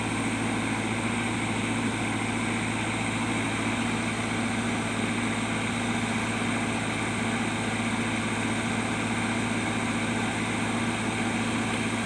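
JCB backhoe loader's diesel engine running at a steady, even speed.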